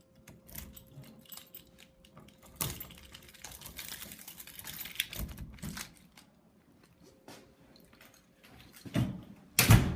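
Key working in a front door lock: a run of small clicks, rattles and scraping from the key, latch and door, then two loud knocks near the end.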